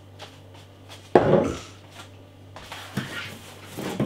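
Beer bottles and cans being handled as they come out of a cardboard box: scattered knocks and clinks, with one loud knock about a second in and a stretch of rustling and clattering in the last second and a half.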